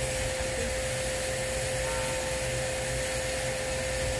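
Steady mechanical hum with an even hiss, one constant tone that does not change.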